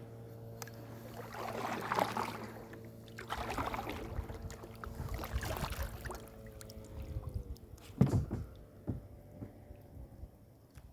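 Kayak paddle strokes swishing and splashing through the water, about three of them, over a steady motor hum that drops in pitch and fades out about seven seconds in. A sharp knock about eight seconds in is the loudest sound.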